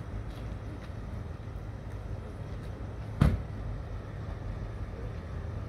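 Steady low rumble of idling vehicles, with a single sharp thump about three seconds in.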